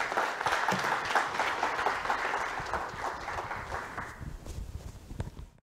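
Audience applauding, the clapping fading away after about four seconds and then cutting off suddenly.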